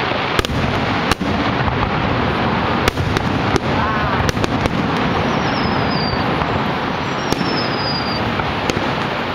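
Aerial fireworks bursting: about eight sharp bangs at irregular intervals, over a steady rushing noise. Two high whistles fall in pitch in the second half.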